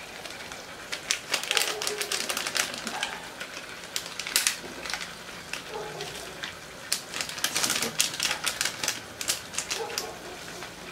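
Irregular crackling clicks of a plastic sachet being handled as dried sibot soup herbs are pulled out and dropped into a wok, in short clusters with brief pauses.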